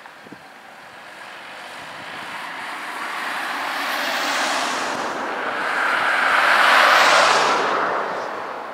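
Two cars driving past one after the other, each a rising and fading rush of tyres and engine on the road; the second pass, about seven seconds in, is the louder.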